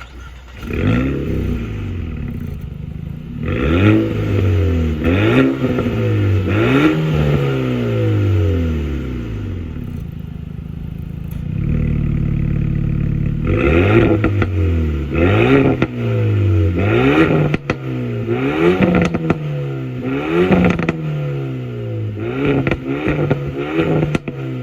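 Renault Mégane R.S. 300's 1.8-litre turbocharged four-cylinder engine revved repeatedly, about once every second and a half. Each rev climbs quickly and falls back. In the middle the revving stops and the engine holds an even idle for a few seconds.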